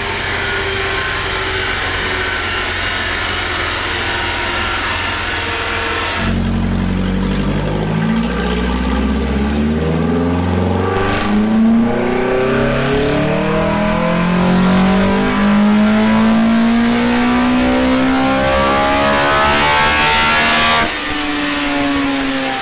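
Toyota 4A-GE twin-cam four-cylinder, breathing through individual throttle bodies with 3D-printed velocity stacks, doing a dyno power run. It runs steadily at first. From about six seconds in it is held under load and revs climb steadily higher through the range. Near the end it backs off suddenly as the run ends.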